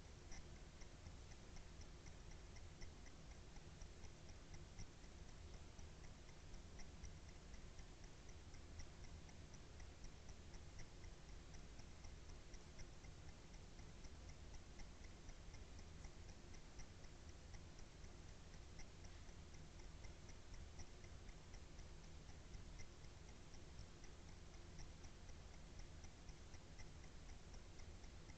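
Near silence: low steady hiss with a faint, even ticking throughout.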